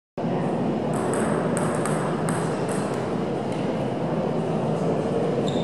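Plastic ping-pong ball bouncing, about six sharp high clicks in quick, uneven succession between one and three seconds in, over the steady hubbub of a sports hall.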